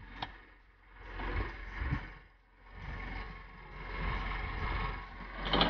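Tow vehicle's engine running while a rope pulls a half-submerged minivan out of a lake; the noise swells and fades in several waves over a steady low hum.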